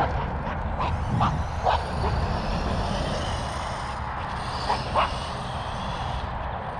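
ARRMA Notorious RC monster truck running across grass at a distance, heard under steady wind rumble on the microphone, with a few short, sharp sounds about a second in and again near five seconds.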